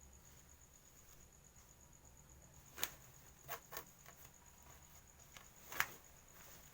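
Faint cricket chirring steadily in a quiet room, with a few sharp clicks about halfway through and a louder one near the end.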